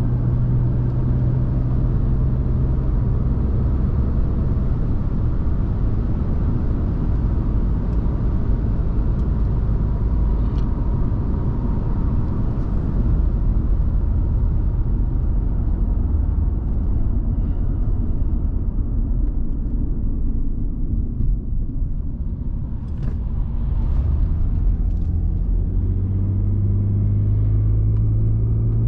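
Cabin noise of a 2005 Audi A6 2.4 with its V6 petrol engine on the road: a steady low rumble of engine and tyres while cruising. The sound eases off briefly about two-thirds through, then the engine hum grows stronger again near the end as the car picks up speed.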